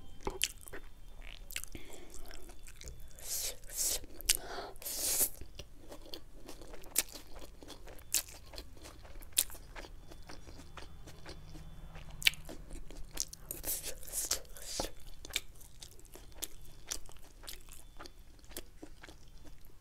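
Close-up eating sounds: a person chewing sauced chili chicken wings and chow mein, with many small crunches and wet clicks and a few sharper clicks.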